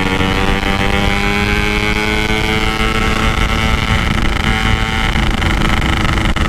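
Yamaha RX-King two-stroke motorcycle engine pulling at high, steady revs under way. The pitch eases slightly over the first couple of seconds, then holds.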